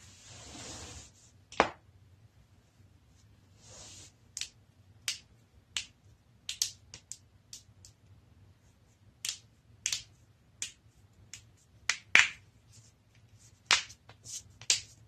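Joint cracks and pops from a person's back being cracked: a string of about twenty short, sharp clicks at irregular intervals, the loudest about twelve seconds in. A soft rush of noise comes during the first second and again around four seconds in.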